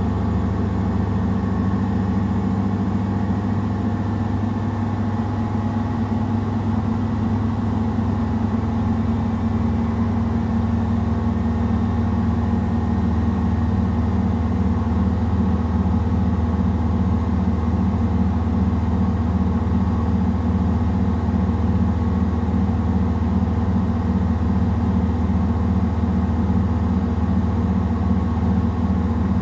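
Samsung WW70T4020EE front-loading washing machine spinning its load of clothes: a steady motor-and-drum hum that takes on an even, rhythmic throb partway through.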